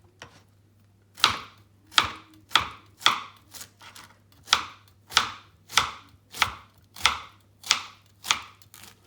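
Kitchen knife slicing a peeled, cored pineapple into thin slices. The knife makes a steady run of about a dozen crisp cuts, roughly one every 0.6 seconds, starting about a second in.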